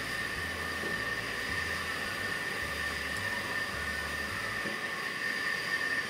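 A steady hiss with a constant high-pitched whine, unchanging throughout.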